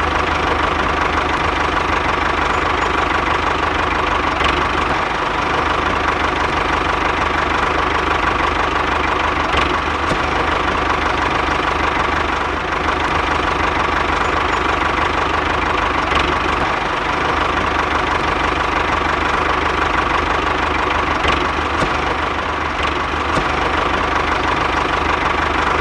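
Engine of a homemade mini tractor running steadily at an even speed.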